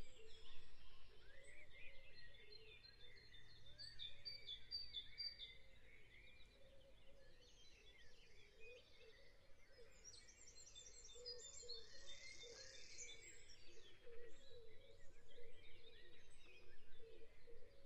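Faint birdsong: many short chirps and whistles, with lower warbling notes running underneath.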